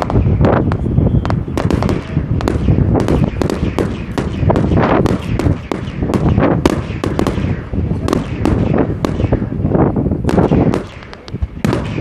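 Aerial fireworks display: a continuous barrage of shell bursts, many bangs in quick overlapping succession, easing off briefly a little before the end.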